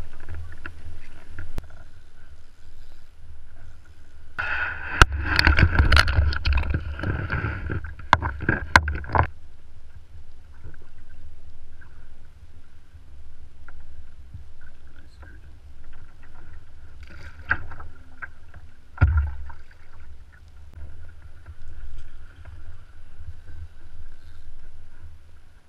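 Wind rumbling on the microphone of a kayak-mounted camera, with water and handling noises on the kayak. A loud stretch of rustling and knocking runs from about five to nine seconds in, and there are shorter knocks near the middle and end.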